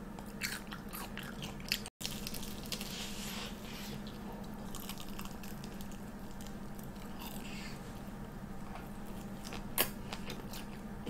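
Person biting and chewing a deep-fried Korean corn dog: faint crunches of the fried coating, with a few soft clicks early on and a sharper click near the end.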